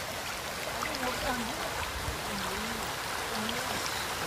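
Steady rush of muddy floodwater from an overflowing river running across a road and fields, with faint voices talking in the background.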